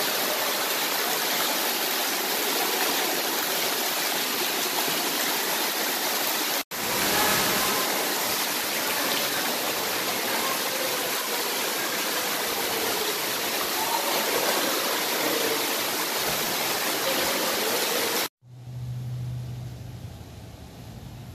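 Water pouring and splashing from an indoor pool's fountain features and waterslide: a steady, loud rush of water. Near the end it cuts off suddenly to a much quieter stretch with a low steady hum.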